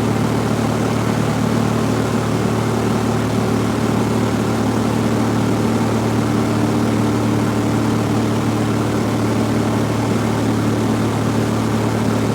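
Cessna 172F's Continental O-300 six-cylinder engine and propeller droning steadily in flight, heard from inside the cabin as a constant low hum.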